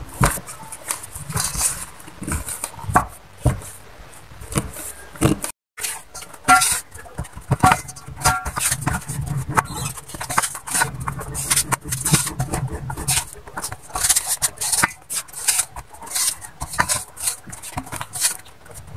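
A spatula scraping and pressing damp glutinous rice flour dough against a stainless steel bowl, with hands squeezing and kneading it: irregular scrapes, rubs and light knocks on the metal. The sound cuts out briefly a little over five seconds in.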